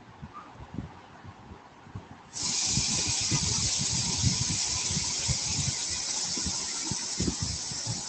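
A steady high-pitched hiss that cuts in suddenly about two seconds in and holds, over scattered soft low thumps.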